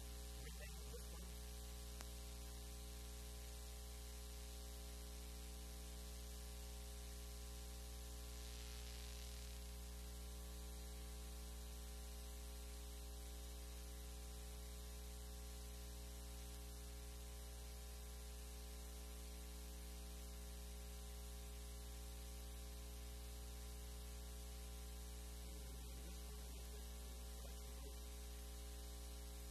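Steady electrical mains hum with a stack of overtones and a faint hiss underneath, unchanging throughout.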